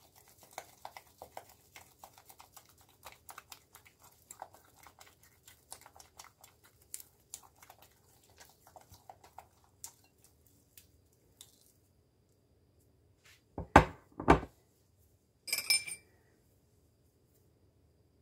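Silicone spatula beating a thick flour-and-water sourdough starter in a ceramic bowl: a quick run of small wet slaps and scrapes for about ten seconds. Near the end come two louder knocks, then a short ringing clink.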